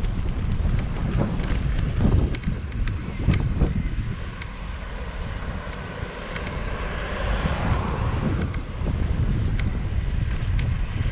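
Wind buffeting the microphone, a gusty low rumble, with a few faint ticks and a brief rise of hiss partway through.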